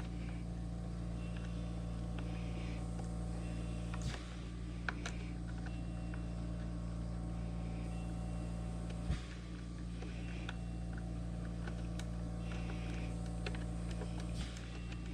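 A few sharp metallic clicks and knocks as parts of a key-cutting machine are handled and fitted by hand, over a steady low electrical hum.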